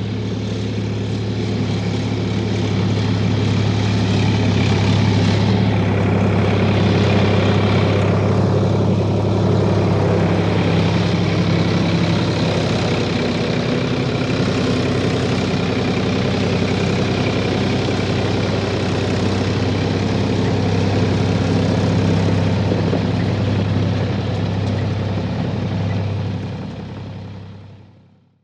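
Heavy engine running steadily at a constant pitch with a deep even hum, fading out near the end.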